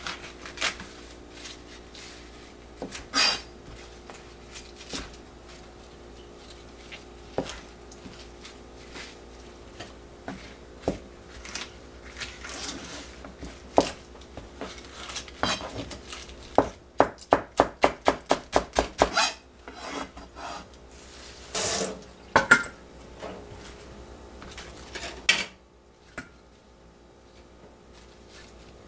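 Kitchen knife cutting leaf lettuce on a plastic cutting board: scattered taps of the blade on the board, then a quick run of chops, about six a second, a little past halfway.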